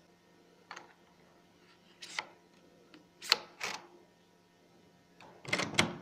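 Electronic key-card door lock being worked: a handful of sharp mechanical clicks and rattles as the card goes into the reader and the lock releases, shown by its green light.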